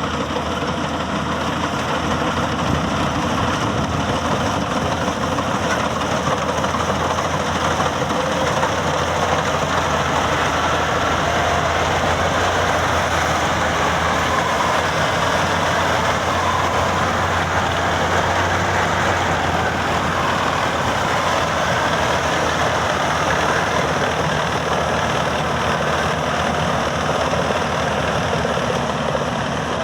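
Maxxi Bimo 102 Top combine harvester running steadily, its engine and machinery making a loud, continuous mechanical din.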